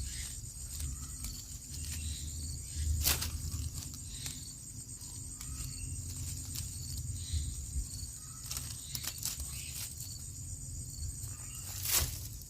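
Outdoor field ambience: a steady high-pitched insect drone, faint short chirps, and a low rumble, broken by two sharp knocks, one about three seconds in and one near the end.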